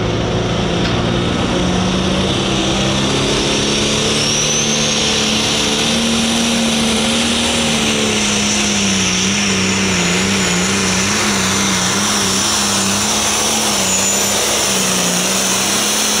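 Limited Pro Stock diesel pulling tractor's engine running hard under load, with a high whistle sitting over the engine note. Midway the engine pitch wavers up and down repeatedly as the tractor pulls.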